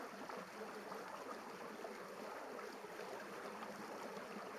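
Steady rush of shallow river rapids running over rocks.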